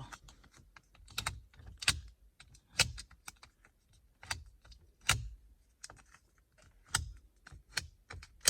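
Adhesive dust-removal sticker dabbed repeatedly on a car's glass infotainment touchscreen, giving sharp tacky clicks as it presses on and pulls off, irregularly about one or two a second.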